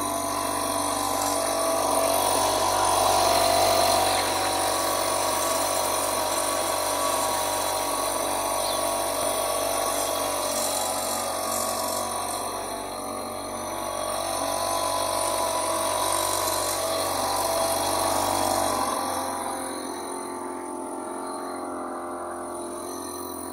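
Small boat's engine running steadily under way, a mechanical whine over a low hum. Near the three-quarter mark the low hum drops out and the whole sound eases.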